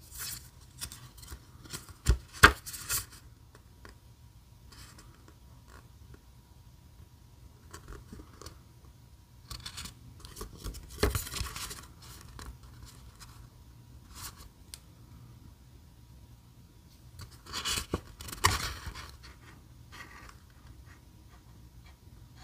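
A folded paper quick-start leaflet being handled and unfolded: crisp paper rustling and scraping in three bursts, with a couple of sharp snaps in the first one.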